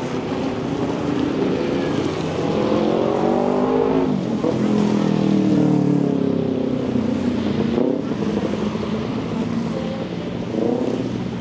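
Street traffic: the engines of motor vehicles passing close by, their pitch rising and falling as they speed up and slow down, over a steady hiss.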